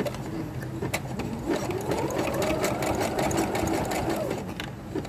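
Sewing machine running, stitching hair wefts onto a wig cap with a rapid, even needle clatter. It speeds up about a second and a half in, then slows down near the end.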